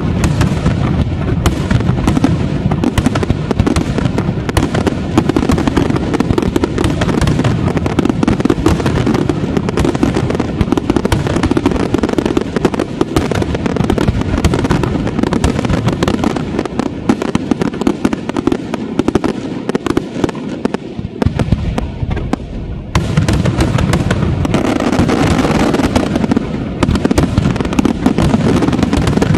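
Large aerial fireworks display firing continuously: a dense, rapid string of shell bursts, bangs and crackle. It eases off for a few seconds about two-thirds of the way through, then comes back suddenly at full strength.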